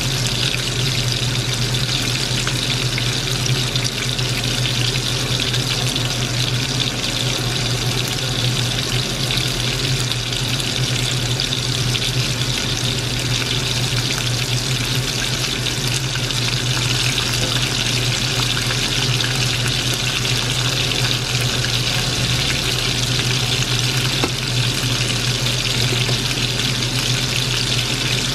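Battered squid rings deep-frying in hot oil in a wok: a steady sizzle, with a steady low hum underneath.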